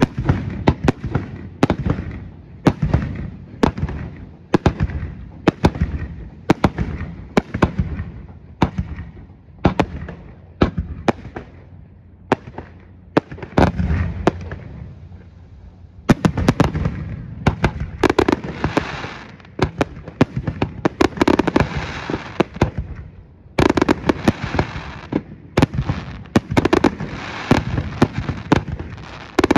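Fireworks display: a steady run of shell bursts booming one after another, each bang trailing off. About halfway through it turns busier, with crackling and rapid-fire reports packed between the booms.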